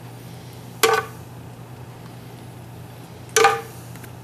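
A metal spoon clinking twice against the cookware as sauce is spooned onto steaks, each clink short with a brief ring, about a second in and again near the end, over a faint steady low hum.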